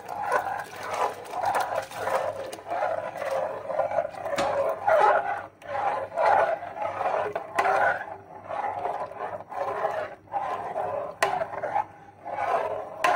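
A metal ladle scrapes around the bottom and sides of a metal pot of milk in repeated rough strokes, about two a second. The milk and a blended bread-and-milk mixture are being stirred so they don't form lumps.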